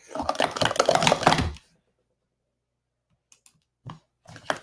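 Plastic speed-stacking cups clattering in a quick run of clicks as a 3-3-3 set of pyramids is down-stacked into columns, stopping abruptly after about a second and a half. A few separate cup clicks and a knock follow near the end.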